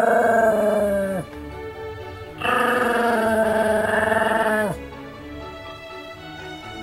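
Pomeranian howling twice, each a long drawn-out call that drops in pitch at the end, over background music.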